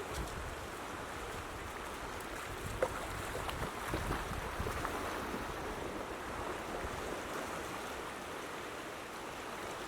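Floodwater rushing in a swollen creek, a steady hiss of current, with wind rumbling on the microphone and one short knock about three seconds in.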